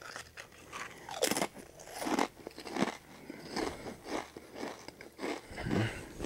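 Ridged potato chips being bitten and chewed, with irregular crunches.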